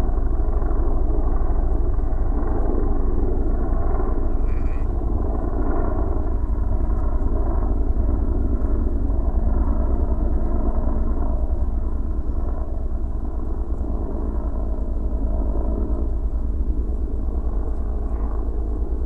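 A steady engine drone with a constant low rumble underneath, holding at an even level throughout.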